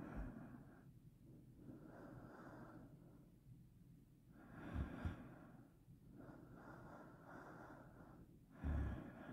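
A person breathing slowly and audibly close to the microphone, in soft breaths every couple of seconds. A couple of louder breaths puff against the microphone, about halfway through and near the end.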